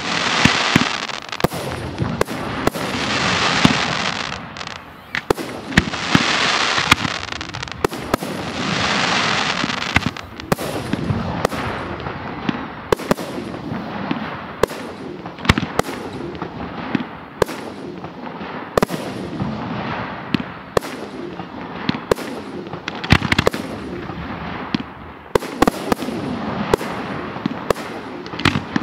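Fireworks display of aerial shells bursting: a steady string of sharp bangs, with swells of dense hiss lasting about two seconds each during the first ten seconds.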